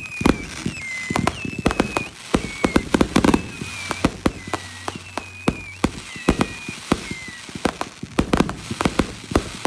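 Fireworks going off: a rapid, irregular string of sharp cracks and bangs, with about ten short high whistles that each dip slightly at the end.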